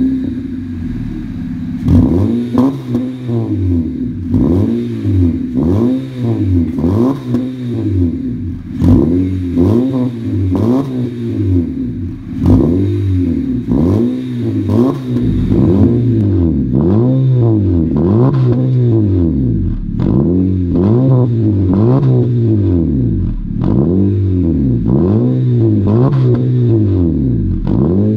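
2016 Honda Civic engine through an aftermarket catback exhaust with triple centre tips, revved in quick blips over and over: each blip rises and falls in pitch, about one a second, with a short idle between. In the second half the sound holds a little louder and steadier between blips.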